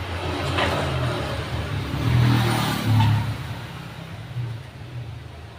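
A motor running with a low hum, swelling to its loudest about two to three seconds in and then fading away.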